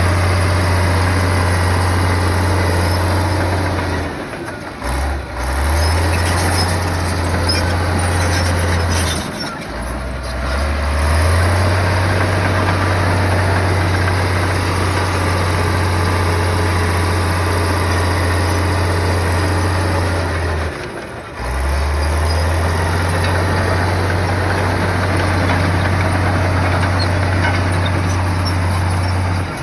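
Diesel engine of heavy earthmoving equipment running steadily with a deep, even hum. About four, ten and twenty-one seconds in, it briefly drops in pitch and level, then comes back up.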